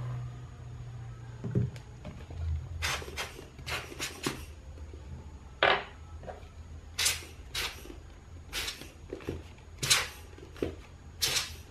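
Sharp clicks and taps as small metal lens parts and a lens element are handled and set down on a desk, about a dozen scattered hits at uneven spacing.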